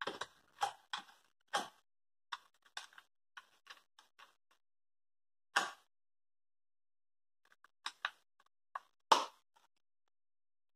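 Scattered clicks and knocks from hands handling the plastic throttle grip and hand tools: a run of quick taps in the first half, then sparser ones, with the loudest knocks about five and a half and nine seconds in.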